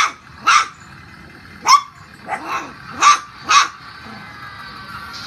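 Puppies yapping: about seven short, high-pitched barks in quick succession, stopping about three and a half seconds in.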